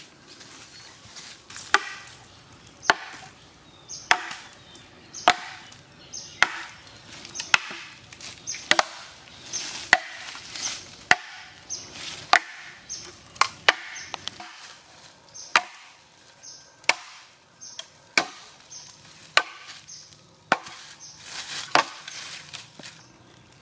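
A machete chopping into the base of a standing green bamboo stalk, with sharp strikes at a steady pace of about one a second.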